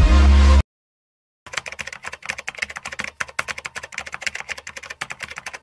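Electronic intro music cuts off suddenly about half a second in. After a second of silence comes a typing sound effect: rapid, uneven key clicks keeping time with text typing itself out on screen.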